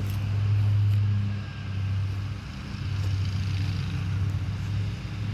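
A lawn mower's engine running steadily, a low hum that swells and fades as the mower moves across the grass.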